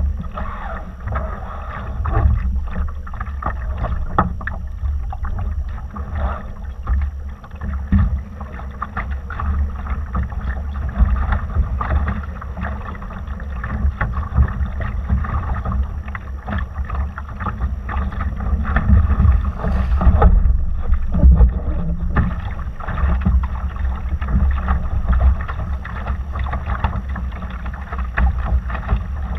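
Laser dinghy under sail: water rushing and splashing against the hull, with a heavy low rumble of wind buffeting the microphone.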